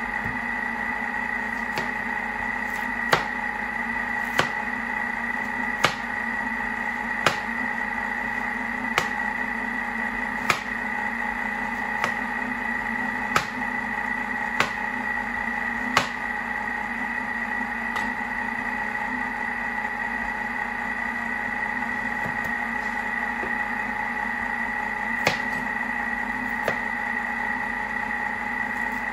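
Thermomix food processor running steadily at low stirring speed while it fries a leek sofrito, giving a constant hum with a high whine. Over it, a kitchen knife taps sharply on a cutting board about every one and a half seconds as a courgette is cut into chunks.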